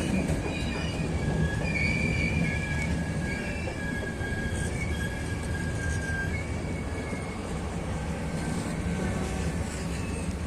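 Passenger express hauled by a ČD class 151 electric locomotive rolling through the station: a steady rail rumble with thin, wavering wheel squeal that is strongest in the first half and fades after about six seconds.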